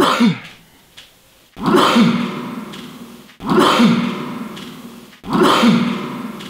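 An edited-in sound effect played three times at even spacing. Each is a pitched, voice-like sound that starts suddenly and fades over about a second and a half.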